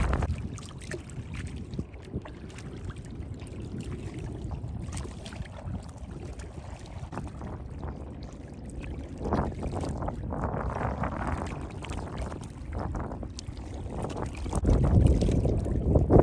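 Paddling an Oru Haven TT folding kayak: water swishing and splashing around the paddle and hull, with a couple of louder swishes about nine and ten seconds in. Wind rumbles on the microphone underneath.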